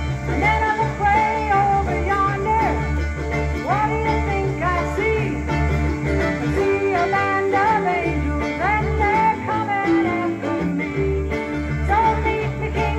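Live country-bluegrass band playing: acoustic guitar, mandolin and electric guitar over a steady bass line, with a lead part of bending notes.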